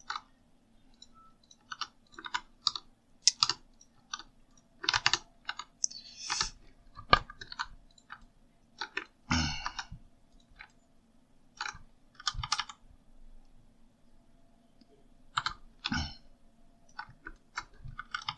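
Computer keyboard keystrokes: scattered single presses and quick short clusters of key clicks as shortcuts are typed, over a faint steady low hum.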